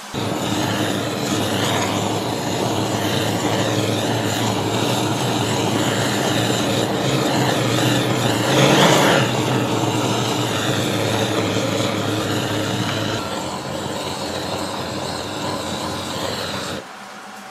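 Handheld kitchen blowtorch burning with a steady hissing flame as it sears dried mullet roe in a pan. The flame swells briefly about halfway through and the sound cuts off shortly before the end.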